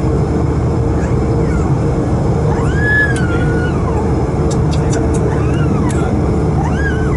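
Steady aircraft noise from an Airbus A220-300: a continuous low rumble with a held mid tone. Twice, a faint high voice-like sound rises and falls over it.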